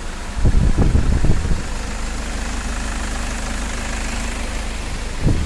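Toyota Fortuner's turbodiesel engine cranking and catching about half a second in, then settling into a steady, even idle with no knock, as it should after its misfire and knocking fault was repaired.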